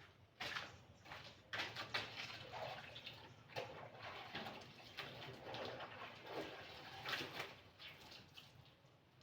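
Clothes being scrubbed and rubbed by hand in a basin of water: faint, irregular swishing and splashing strokes.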